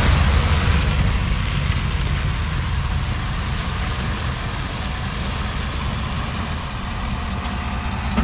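Ford F350 Super Duty dually pickup's engine running at low speed as the truck pulls away and turns through a tight U-turn. It is a steady rumble that gets gradually quieter as the truck moves off.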